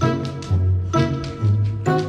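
Background music with a steady beat, a new note with a bass line about twice a second.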